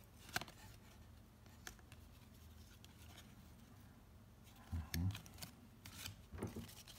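Upper Deck basketball trading cards being leafed through by hand: faint card-edge snaps and rustles, with a few louder handling knocks about five seconds in.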